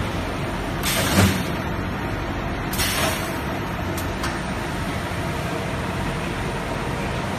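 Cereal bar moulding machine running with a steady mechanical hum. About one second in, and again about three seconds in, its pneumatic press cylinders work with a short hiss of air, the first with a thump, and two sharp clicks follow around four seconds.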